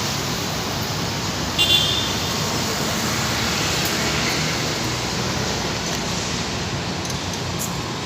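Steady rumble and hiss of a running engine, with a short high-pitched toot about one and a half seconds in.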